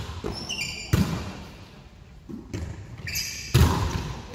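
Volleyball being hit during play in a large gym hall: two sharp smacks about two and a half seconds apart, each ringing on in the hall. Short high squeaks of sneakers on the hardwood floor come just before each hit.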